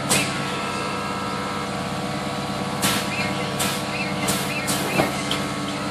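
Digital air suspension on a 1996 Honda Civic raising the rear in steps: short, sharp bursts of air from the valves, one at the start and about five more in quick succession later, over a steady hum.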